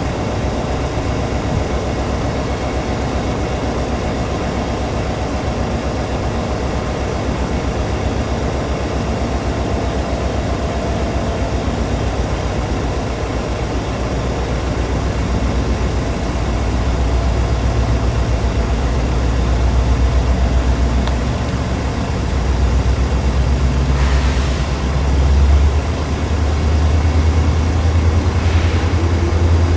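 NJ Transit diesel locomotive engine running with a steady low rumble, which grows louder about halfway through. Two brief hisses come in the last few seconds.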